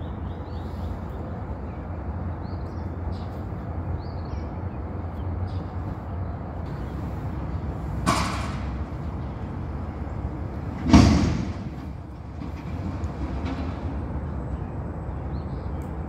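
Garbage truck's engine running steadily, with a bang about eight seconds in and a louder bang about three seconds later that rings out briefly.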